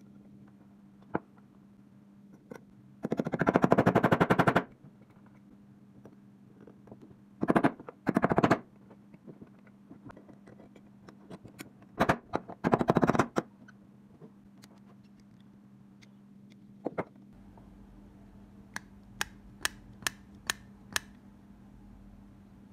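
A twisted-wire brush spun against a Beretta M1935's carbon-steel pistol frame, scrubbing it clean: three bursts of rapid rattling scraping, each one to two seconds long. Near the end come a few light, sharp metallic clicks.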